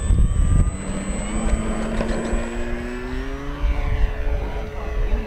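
Electric motor and propeller of an FMS Ranger 1800mm RC plane running at takeoff power, a steady drone that rises slowly in pitch as it lifts off and climbs away. Wind buffets the microphone near the start.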